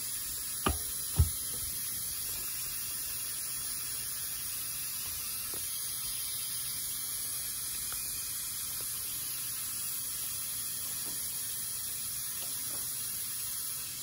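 Steady airy hiss in a small treatment room, with two short knocks about a second in.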